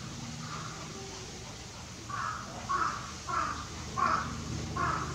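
A bird calling five times in quick, even succession, starting about two seconds in, over a steady low hum.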